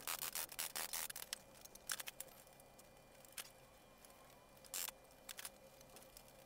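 Small sharp clicks and taps from metal trim and spring clamps being handled and set on the edge of a wooden trunk frame: a quick run of them at first, then a few scattered ones.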